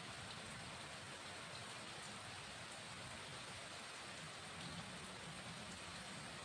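Steady rain falling, an even hiss with a few faint drip ticks.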